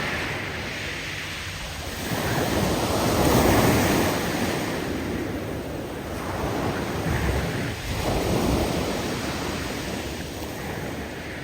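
Big waves breaking and surging on a steep shore of loose cobbles and pebbles, with the hiss of rocks tumbling in the surf as the water pulls back. Two surges swell up, the louder one about three seconds in and another around seven to eight seconds, easing off near the end.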